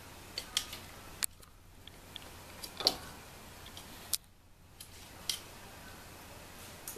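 An American Shorthair cat's claws and paws clicking and tapping on a wooden floor and a door stopper as it bats at the stopper. Scattered sharp clicks, the loudest about three seconds in.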